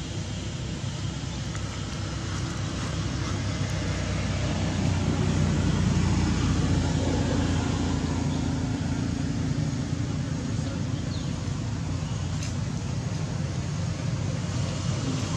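A motor vehicle engine running, a steady low hum that swells about five seconds in and then eases off, as a vehicle passing or idling nearby would.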